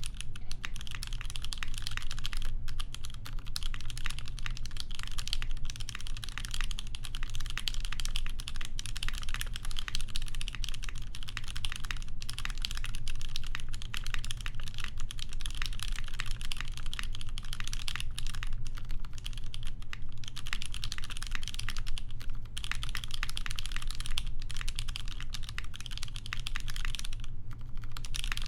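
Continuous fast typing on a polycarbonate-case Lin Dolphin mechanical keyboard with lubed Cherry MX Vintage Black linear switches on an aluminium plate and GMK keycaps: a dense stream of key clacks with a few brief pauses.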